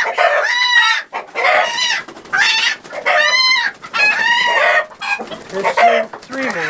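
Chickens screaming in alarm as they are grabbed and caught by hand: loud, drawn-out squawks, about six in a row, one after another.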